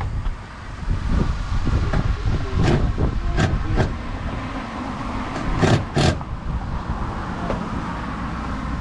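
Highway traffic going by as a steady low rumble, with several sharp knocks between about three and six seconds in, the loudest two close together near six seconds.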